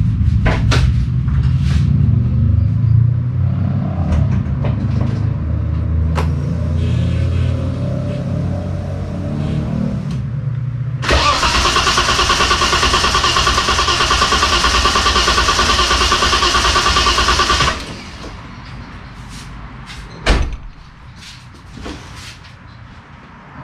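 Holden VL Turbo Commodore's RB30ET straight-six being cranked on the starter with the ignition coil disconnected, turning over without firing to build oil pressure. A long spell of low, rhythmic cranking, a brief pause, then a louder stretch of about six seconds with a steady high whine that cuts off suddenly; a single thump follows a couple of seconds later.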